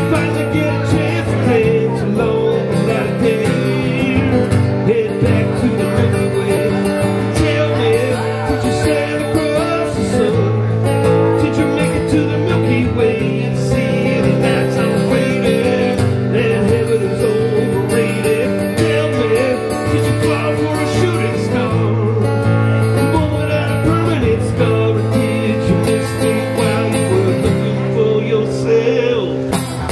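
Live acoustic guitar playing with a man singing along at a microphone: a solo acoustic cover of a pop-rock song.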